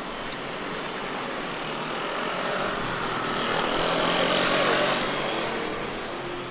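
A motor vehicle passing by: its engine and tyre noise swell to a peak about four and a half seconds in, then fade.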